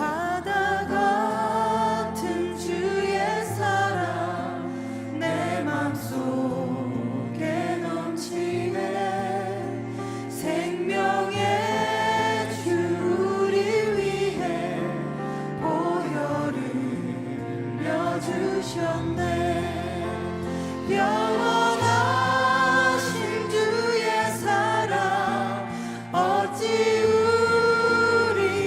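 Worship band music with several voices singing together over long held bass notes and keys.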